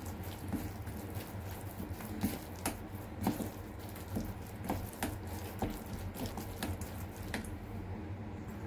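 Silicone spatula stirring and scraping sticky minced fish paste around a stainless steel bowl: wet squelching with irregular light taps and scrapes, about two a second, easing off near the end.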